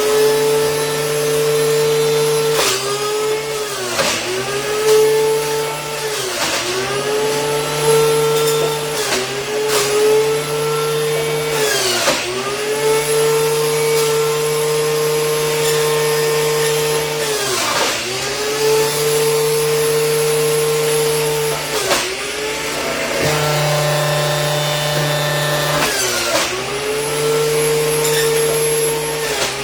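Electric juicer motor running at high speed, its pitch sagging and recovering about ten times as apples and carrots are pushed through it and load the motor.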